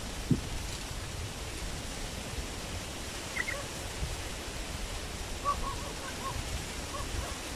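Short calls from streak-eared bulbuls at a cage trap: a quick pair of high notes about three and a half seconds in, then a run of short chirps from about five and a half seconds, over a steady rushing hiss. A single low thump comes just after the start.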